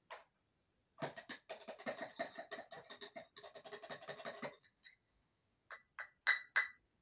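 Small plastic toy-kitchen pieces scraping and rattling together in quick, irregular strokes for about three and a half seconds, followed by four sharp plastic clacks near the end.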